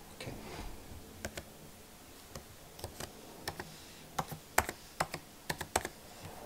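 Typing on a 2017 MacBook Pro's butterfly-switch keyboard to enter a password: irregular light key clicks, a few at first, then coming more quickly from about four seconds in.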